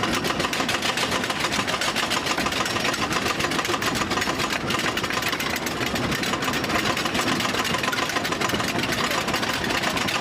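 Wooden roller coaster train clattering on its track, a steady, rapid run of clacks over a rumbling mechanical noise.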